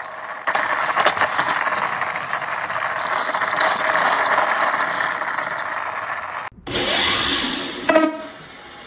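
Skateboard wheels rolling fast over rough asphalt under a skateboard-fronted electric mini bike: a steady, loud grinding rattle with scattered clicks. It cuts off suddenly about six and a half seconds in, and a shorter noisy stretch ends in a sharp knock near the end.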